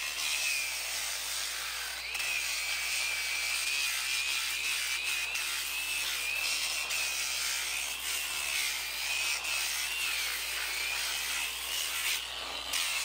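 Angle grinder with an abrasive disc grinding down a horse's hoof: a steady high motor whine over a rasping grind. The whine drops out briefly about two seconds in, then carries on, wavering slightly.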